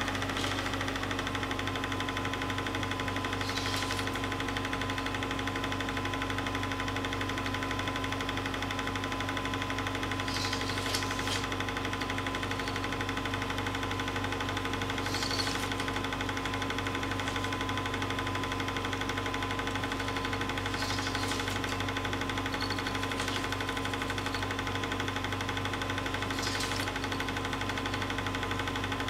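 Film projector running: a steady mechanical whirr with a fine, rapid clatter, a constant hum and a thin high whine.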